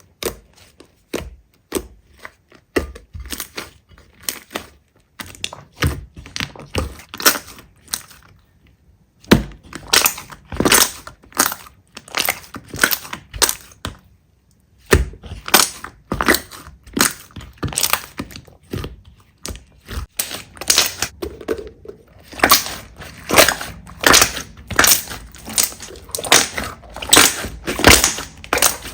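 Slime being squished and pressed, a dense run of sticky pops and crackles that pauses briefly twice.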